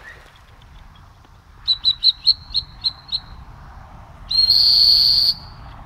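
Dog-training whistle: a quick run of about seven short toots, then one loud, steady blast about a second long. The long blast is the stop signal to a retriever working a blind retrieve, and the short toots mean the dog is close to the bird.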